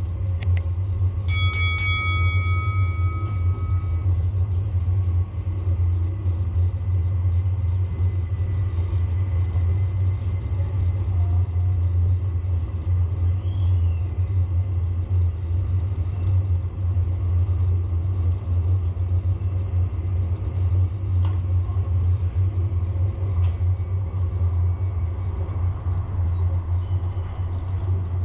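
Steady low road rumble. A high tone with overtones sounds for about two and a half seconds, about a second in.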